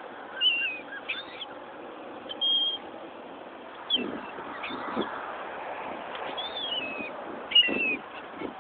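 Wild birds begging for food, giving several short, high calls, some sliding down in pitch, over a steady background hiss. A few dull knocks come partway through and near the end.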